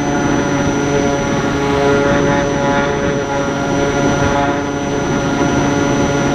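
Small R/C flying wing's motor and propeller running in flight, heard from the camera on board: a steady whine with a stack of pitched tones that holds its pitch, over rough wind noise.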